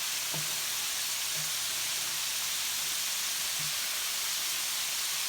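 Floured chicken strips frying in hot grease, a steady sizzle.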